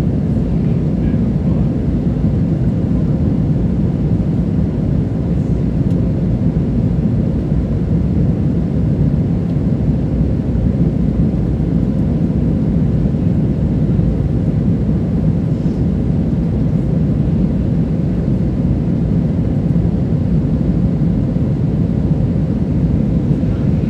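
Steady low cabin roar of an Airbus A320 in its climb, heard inside the cabin from a window seat: the IAE V2500 engines and rushing airflow.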